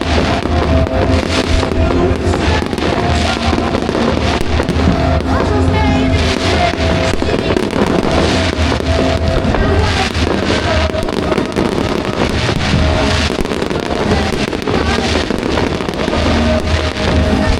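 Fireworks bursting and crackling in a dense, continuous run, over music with held notes.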